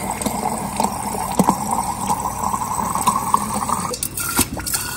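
Water from a Samsung refrigerator's door dispenser pouring into a glass mason jar, the filling tone rising slowly in pitch, as the line is flushed to bleed out air after a new water filter. About four seconds in the filling tone stops and a few short clicks follow.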